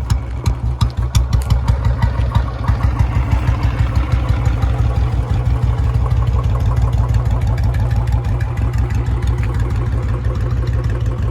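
Two Royal Enfield Bullet single-cylinder engines running together with a loud, deep thumping beat. The beat quickens and grows louder in about the first second, then holds steady.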